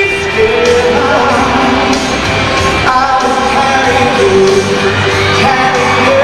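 A boy singing into a microphone over a backing track, played loud through an arena's sound system, with long held notes.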